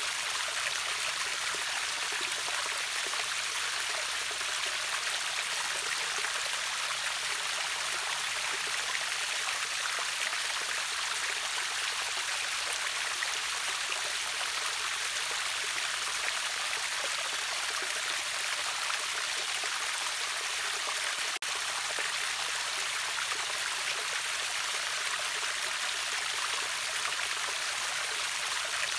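River waterfall rushing steadily: an even, hissing wash of water, bright rather than deep, with a momentary dip about two-thirds of the way through.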